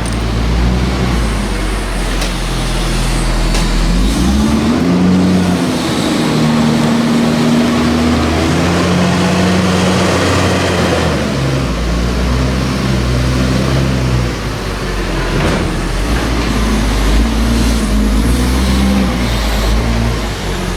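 Tractor engine working on a maize silage clamp, running loudly with its pitch rising and falling several times as it changes speed and load.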